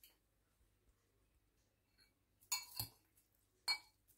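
Two metal forks clinking against a glass pot while tossing spaghetti. Nothing for the first two seconds or so, then two clinks close together and a third near the end.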